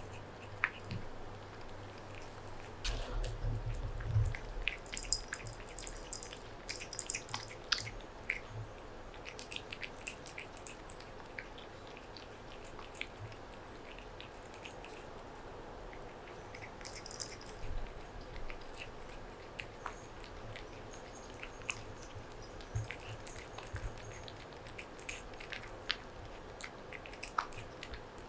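A cat eating raw tuna: irregular wet clicks, licks and chewing smacks as it laps and chews the chunks. There is a brief low rumble about three seconds in.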